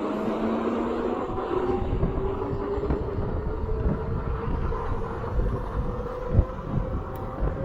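Vehicle running with a rumble underneath. Its engine note slowly rises in pitch, as when it accelerates.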